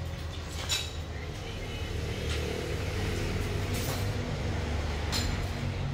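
A steady low hum with a few sharp clicks as a Makita impact driver is handled and its trigger pulled. The motor never starts: the tool is dead.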